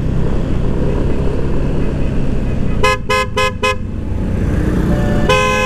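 Motorcycle horn beeped four times in quick succession about three seconds in, then held for one longer beep near the end, over the steady rumble of engine and wind while riding.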